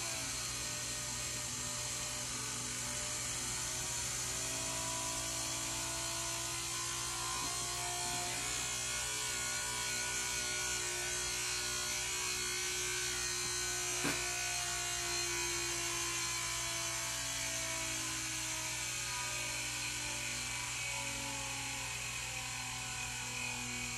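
Small electric transfer pump's motor running steadily with a hum, with one short knock about halfway through. The pump is running dry and not drawing fluid, because it has not been primed.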